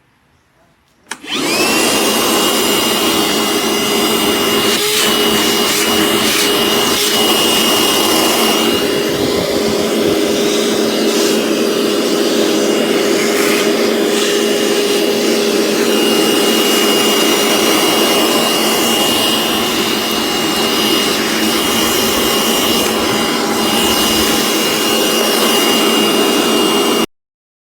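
DeWalt 20V MAX DCV580H cordless wet-dry vacuum switching on about a second in and running steadily with a high whine, with a few scattered clicks. It cuts off abruptly near the end.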